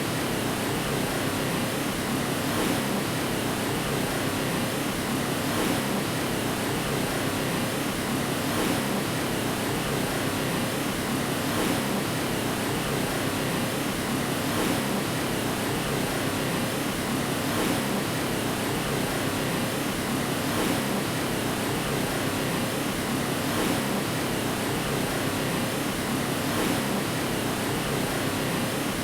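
Steady white noise played as a baby's sleep aid: an even, unchanging hiss with a faint swell about every three seconds.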